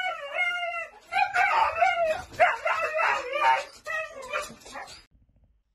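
Husky vocalizing in long, wavering howl-like yowls, in two stretches that stop about five seconds in.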